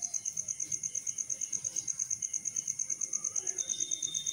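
Insect trilling: a high, steady pulsing at about fourteen pulses a second.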